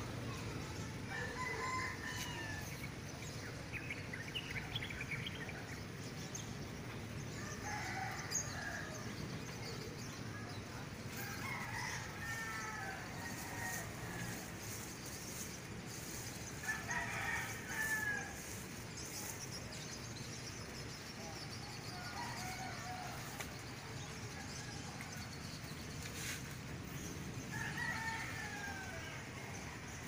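Roosters crowing about seven times, a call every four to six seconds, over a steady low background rumble.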